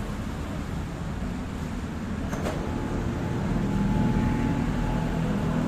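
Lung Pang LP-520B standing dough sheeter running, its motor and rollers giving a steady low hum that grows a little louder about halfway through, with a faint click about two and a half seconds in.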